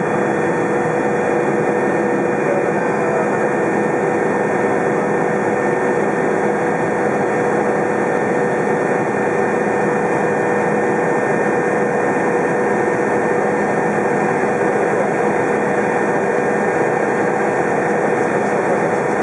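Agusta A109 helicopter in flight, heard from inside the cockpit: a steady mix of twin turbine engine and rotor noise, with a constant whine on top and no change in level.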